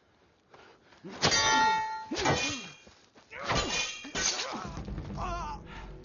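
Sword blows on metal in a film sword fight: four clanging strikes, the first ringing on for most of a second. A low rumble comes in near the end.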